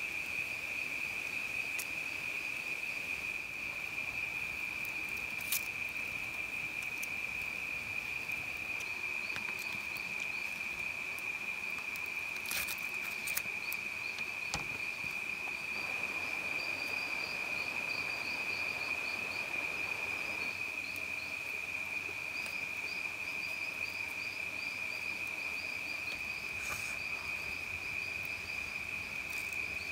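Night insects in the forest: one gives a steady, high, unbroken drone, and a second, higher rapid chirping joins in after about nine seconds. A few sharp clicks sound about halfway through.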